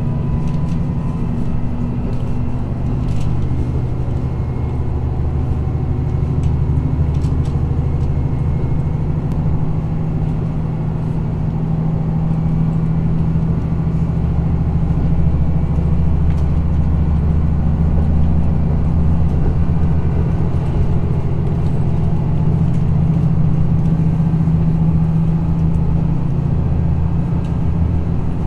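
Interior sound of a JR Hokkaido KiHa 54 diesel railcar: its diesel engine runs with a steady low drone and rumble, and a couple of faint clicks are heard.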